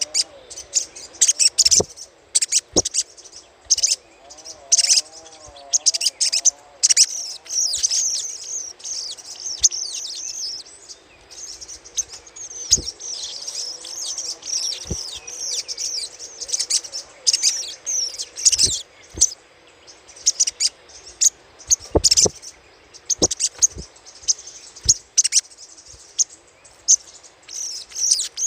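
Crimson sunbird (sogok ontong) giving rapid, high-pitched chattering calls in quick irregular bursts of twitters and trills, the excited chatter played as a lure call.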